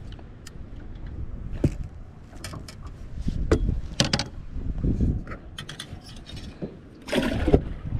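Handling noise from gear in a boat: irregular clicks, knocks and rattles, with a louder scraping rustle about seven seconds in.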